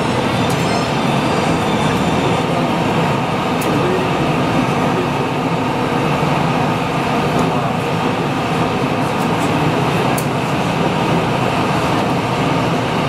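Airbus A319's CFM56 jet engines idling as it taxis in, heard through glass as a steady muffled rumble with a faint high whine early on.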